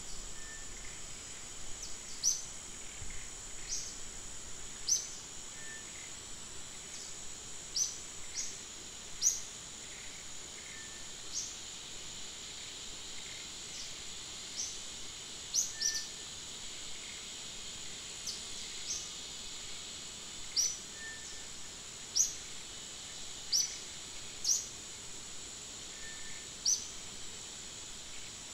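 Forest ambience: a steady high insect drone, with short, high, sharply falling bird chirps repeating irregularly every second or two.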